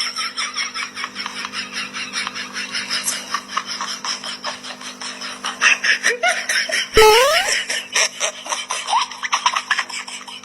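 Continuous, rapid pulsing laughter. About seven seconds in a sudden knock sounds, followed by a short rising squeak.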